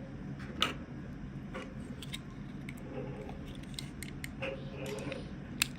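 Hands handling toy packaging in an unboxing: scattered light clicks and rustles, with a sharper click about half a second in and the loudest one near the end.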